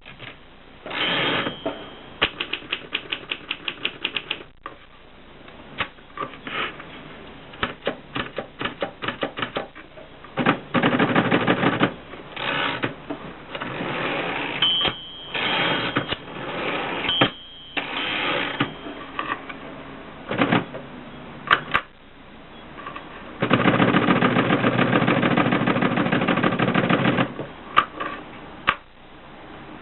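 Mercedes Selekta typewriter being worked: quick runs of sharp key clicks, broken by several longer dense mechanical rattling stretches, the longest about four seconds near the end.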